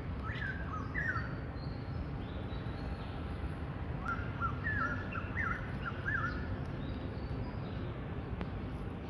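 Small birds chirping in quick runs of short notes, once near the start and again in a longer run from about four to six seconds in, over a steady low background hum.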